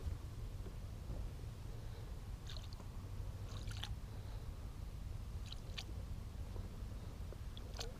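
Quiet on-the-water ambience on a small fishing boat: a steady low rumble, with a few brief faint ticks from the rod and baitcasting reel as a glide bait is twitched and retrieved.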